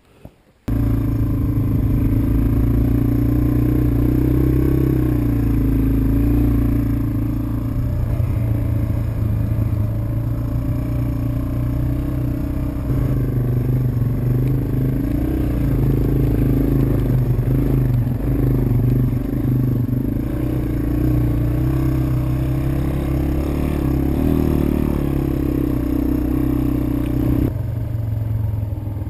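Yamaha TW200's single-cylinder four-stroke engine running steadily at low trail speed, its pitch wavering a little, with some clatter from the bike on rough ground. The engine sound cuts in abruptly just under a second in.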